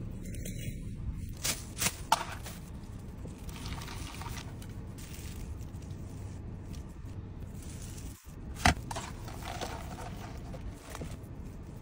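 Close-up eating and food-handling sounds: a few sharp clicks, the loudest about two seconds in and near nine seconds, with softer wet noises between them, over a steady low hum.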